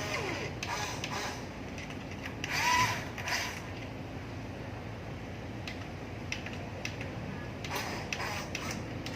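Small-scale mechanical clicking and rattling over a low steady hum, as from a radio-controlled construction model's gears and tracks at work, with scattered clicks and a louder rattle about three seconds in.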